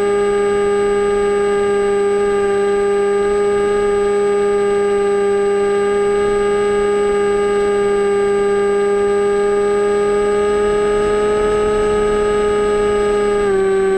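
Electric motor of an AXN Floater Jet RC plane whining steadily in flight. The pitch creeps up slightly, then steps down suddenly near the end as the throttle changes.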